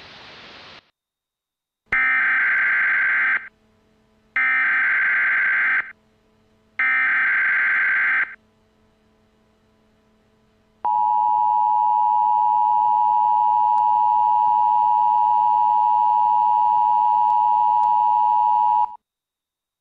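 Emergency Alert System signalling: three screeching bursts of SAME digital data tones, each about a second and a half long. After a pause comes the steady two-tone attention signal, held for about eight seconds, which then cuts off abruptly.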